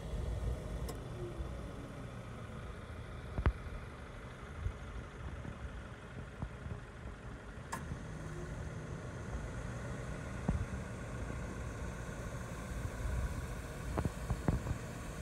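Low, steady rumble of a vehicle engine idling, with a few faint clicks.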